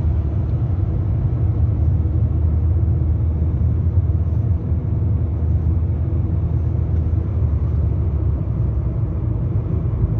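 Steady low rumble of a 2006 Peugeot 206 automatic on the move, engine and road noise heard from inside the cabin.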